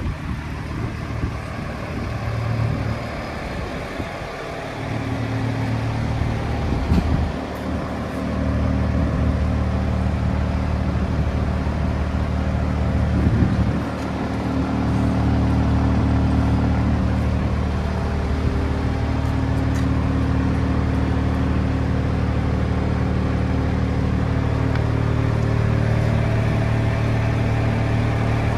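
A drilling rig's engine running at a steady idle, growing louder about four seconds in and then holding an even, unchanging note.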